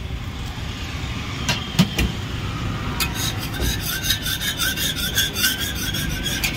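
A flat metal spatula scraping across a dosa griddle to clear off leftover batter and masala. A few sharp metal taps come about a second and a half in, then quick, evenly spaced scraping strokes, about three a second, from halfway on.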